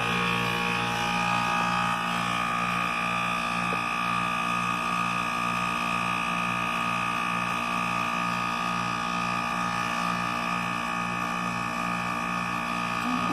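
Goodman package heat pump's compressor running in defrost with a steady, loud hum and whine, a sound the owner takes for a failing compressor that may not be worth repairing.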